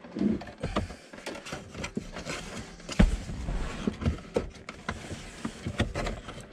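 Scrapes, rustles and clicks of a metal wire snake being pushed up through a truck's floor carpet and hands feeling for it under the dash, with one sharp knock about three seconds in.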